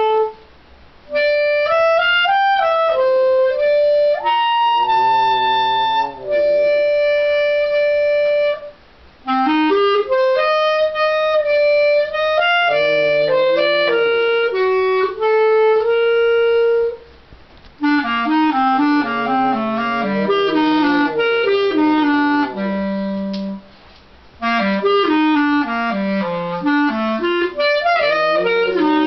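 Clarinet playing a melody in several phrases, each broken by a short pause.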